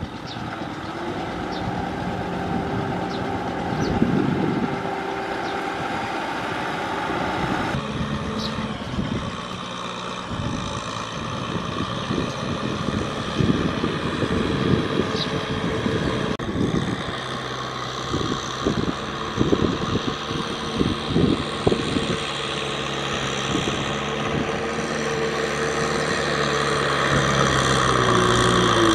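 Kubota M6040SU tractor's four-cylinder diesel engine running under load while its rotary tiller churns a flooded rice paddy. It comes with frequent irregular knocks and clatter through the middle, and the engine grows louder near the end.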